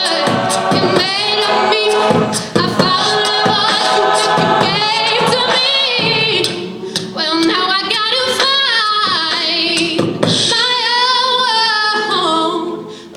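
Mixed a cappella group singing, with a solo voice over sung backing harmonies and vocal percussion.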